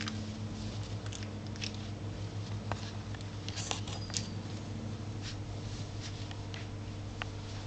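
Two-and-a-half-week-old whippet puppies shuffling and scrabbling on a soft blanket: scattered small rustles and clicks over a steady low hum.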